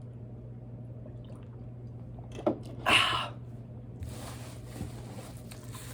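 Beer cans and packing being handled while unboxing: a light knock, a brief louder rustle about three seconds in, then faint rustling over a steady low hum.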